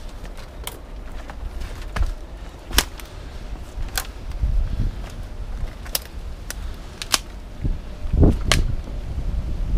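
Dry fallen twigs and branches snapping and cracking underfoot: a string of sharp cracks, several of them loud, with heavier crunching near the end, over a low rumble.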